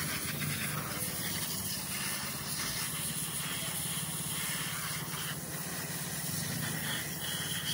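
Pressure washer spraying a water jet onto a motorcycle's engine and frame: a steady hiss of spray with a steady low hum underneath.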